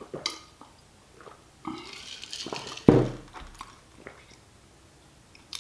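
A person gulping a drink from a glass mason jar, with short swallowing and mouth sounds, then the jar set down on a wooden table with a sudden thump about three seconds in.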